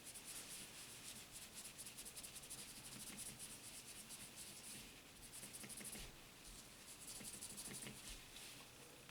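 Faint scratchy hand rubbing on the knife in quick back-and-forth strokes, easing off briefly about halfway through.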